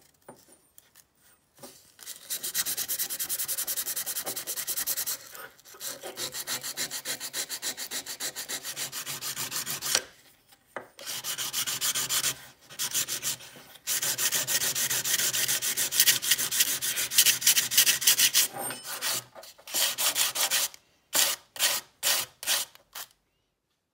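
Abrasive paper rubbed by hand over a steel open-end wrench, rapid back-and-forth sanding strokes in long runs broken by short pauses, with a few separate strokes near the end. The sanding smooths and polishes the old wrench's surface.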